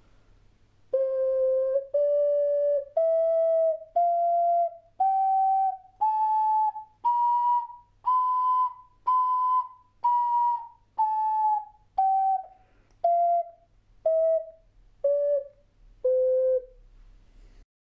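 Rotter ocarina playing a C major scale as separate notes, about one a second: up an octave step by step, the top note sounded twice, then back down to the starting C.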